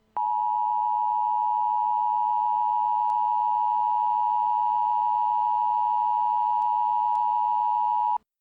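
Emergency alert attention tone: a loud, steady electronic tone held for about eight seconds, cutting off sharply near the end. It signals that an emergency warning broadcast, here a blizzard warning, is about to follow.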